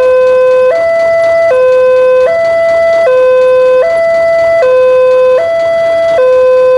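Railway level-crossing warning alarm from the loudspeaker on the crossing signal: an electronic two-tone signal alternating high and low, each note lasting about three-quarters of a second, sounding while the barrier is down to warn that a train is approaching.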